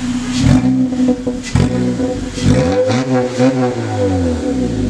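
2014 Honda Accord's engine on its stock, muffled exhaust, blipped from idle about five times in quick succession, each rev rising and falling back, the last held a moment longer.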